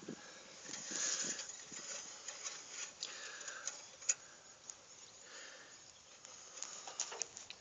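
Faint scattered clicks and rustling of handling and movement around the engine of a bulldozer that is switched off, with one sharp click about four seconds in.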